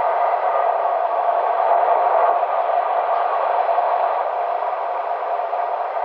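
Steady road and tyre noise of a car cruising on an expressway, heard inside the cabin as an even rushing hiss.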